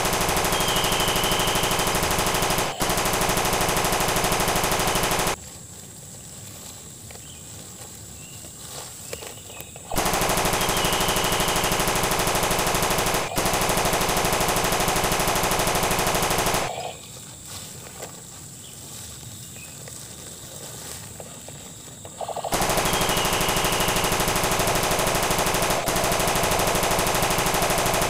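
Machine-gun sound effect: rapid automatic fire in three long bursts of about five to seven seconds each, separated by quiet pauses.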